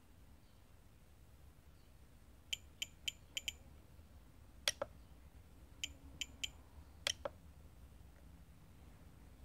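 Spektrum DX7s RC transmitter clicking as its scroll wheel is worked: a quick run of five short, sharp clicks, then a louder double click, three more clicks, and a second louder double click.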